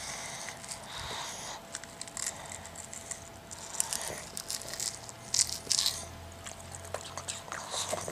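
A pug biting and chewing watermelon: irregular wet crunches and smacks, loudest about five and a half seconds in.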